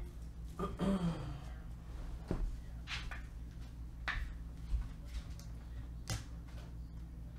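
Steady low electrical hum with a few scattered faint clicks and knocks.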